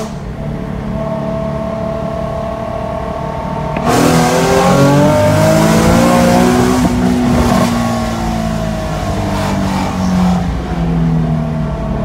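Nissan 370Z's VQ37VHR V6 with Stillen Gen 3 cold-air intakes, heard from inside the cabin during a 40 mph roll. It cruises steadily for about four seconds, then full throttle comes in with a sudden loud surge and the revs climb toward redline for about three seconds before falling away.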